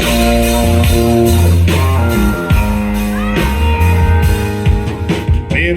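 Band playing the instrumental intro of a country song: electric guitar chords over bass and drums, loud and steady, with the singer's voice coming in at the very end.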